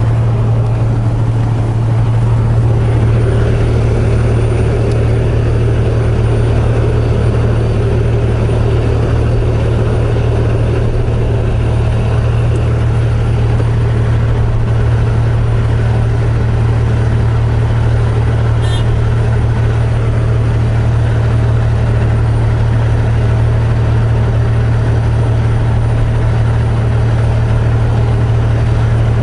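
Semi-truck's diesel engine idling with a steady low hum, heard from the cab.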